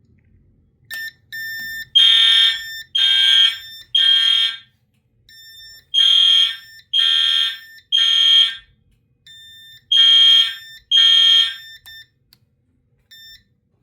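Fire alarm horns sounding the temporal-three evacuation pattern: loud, harsh horn blasts about a second apart in groups of three, with a short pause between groups. A second, quieter horn with a cleaner tone sounds briefly in the gaps, out of step with the first. The loud horn stops after only two blasts of its third group.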